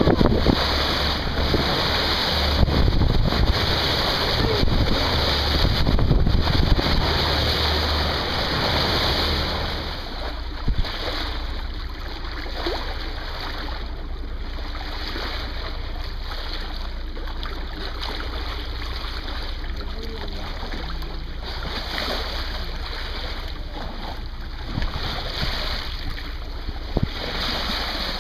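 Water rushing past a moving boat's hull with wind buffeting the microphone, louder for the first ten seconds or so and then lower and steadier.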